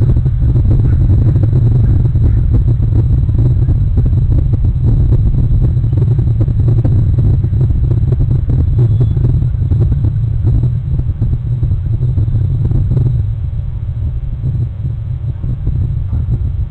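A loud, steady low rumble without a clear pitch, easing a little near the end.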